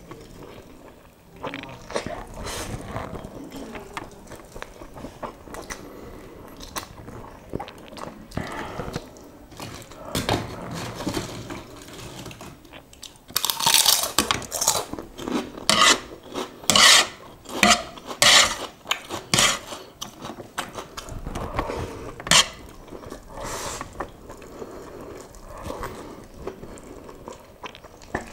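Eating sounds: slurping and chewing spicy instant noodles. From about 13 seconds in comes a run of loud, sharp crunching bites into a keropok cracker, lasting several seconds, then softer chewing again.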